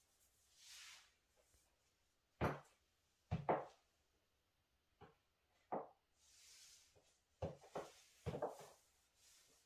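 High-heeled platform shoes clicking on a hard floor as the wearer shifts her feet and turns, in irregular steps, some in quick pairs, with a couple of soft swishes of rubbing fabric between them.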